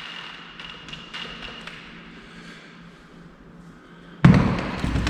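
A few light clicks and taps, then about four seconds in a sudden loud thump followed by a brief rattle.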